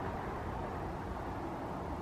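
Steady low rumbling background noise with no distinct events, like outdoor ambience or distant traffic.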